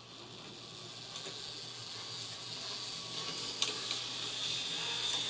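Model locomotive's 5-pole motor with ball bearings and its gearbox running along the track: a steady high whine that grows louder, with a few light clicks about three and a half seconds in.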